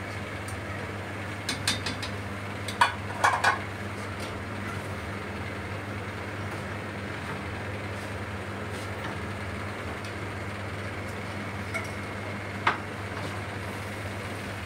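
Metal slotted ladle clinking against an iron kadhai several times in quick succession, and once more near the end, over a steady low hum.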